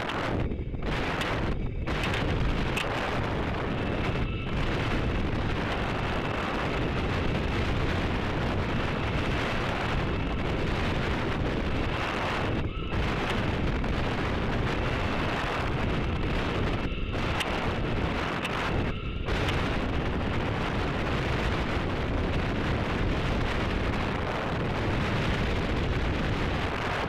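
Steady rush of wind over the rocket's onboard camera microphone as it descends. The hiss thins briefly several times, and a faint high whistle comes and goes.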